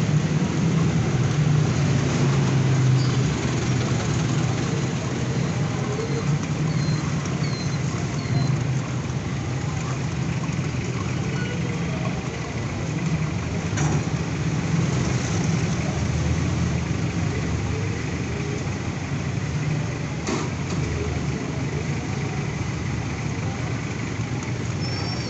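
City street traffic: motor vehicle engines idling and running close by, a steady low hum, with two sharp knocks partway through.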